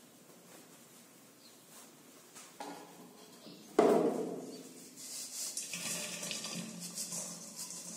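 A heavy metal cooking pot knocks once, sharply, about four seconds in as it is gripped and lifted off the gas stove, after a lighter knock just before. Crumbly flour dough then slides and pours out of the pot into a stainless steel bowl with an uneven scraping rustle.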